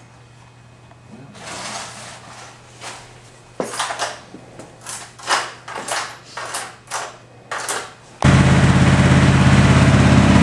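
Scattered light clicks and knocks. About eight seconds in, a pickup truck's engine starts to be heard abruptly, running loud and steady after a quick start.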